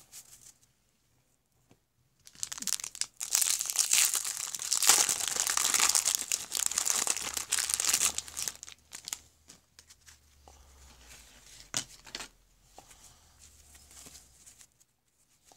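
A 1989 Topps wax-paper card pack being torn open and its wrapper crinkled, dense and loud for about six seconds, followed by quieter rustling and a few light ticks as the cards and wrapper are handled.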